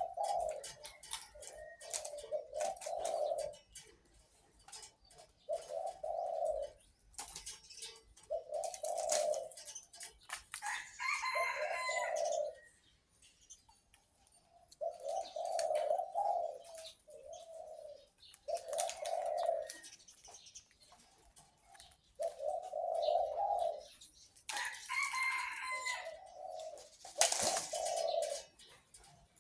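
Captive-bred dove cooing in repeated groups of deep coo notes, with short bursts of higher chirping from other birds about ten seconds in and again near the end.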